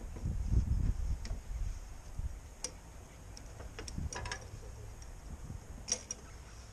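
Handling noise, then scattered sharp metallic clicks and light knocks as the carburettor is worked off a lawnmower engine. A low rumble comes first, then a few separate clicks with a small cluster near the middle.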